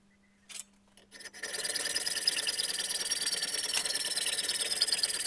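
Pillar drill starting about a second and a half in, then running with a scraping noise and a high whine that slowly falls as its bit cuts into the aluminium body of a BTH KC2 magneto held in a vise, drilling out a damaged thread.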